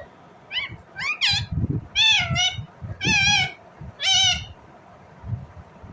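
Indian ringneck parakeet calling: a quick run of short rising chirps, then four longer, wavering, drawn-out calls.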